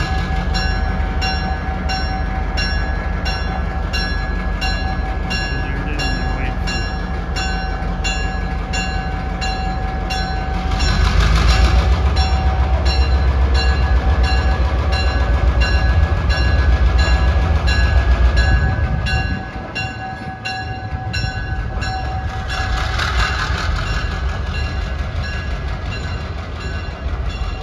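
Diesel locomotive's engine running with a deep pulsing rumble while moving slowly in a rail yard. The rumble grows louder about a third of the way in and drops back near two-thirds. A regular ticking runs about twice a second, and short bursts of hiss come twice.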